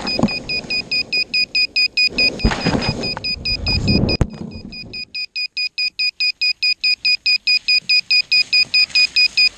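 A racing quadcopter's flight-controller buzzer beeps steadily, a high beep about four times a second, after the quad has crashed. For the first four seconds or so there is rustling and scraping as the quad tumbles through pine needles and branches, ending in a sharp knock as it lands on the ground. After that only the beeping goes on.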